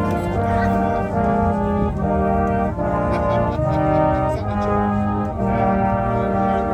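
Brass band playing a slow tune: sustained notes and chords that move on roughly once a second.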